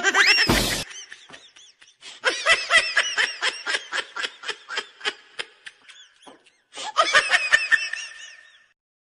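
Laughter: a long run of short ha-ha bursts, several a second, with a brief pause after the middle, then more before it fades out. A short, loud rising sound comes just before the laughing.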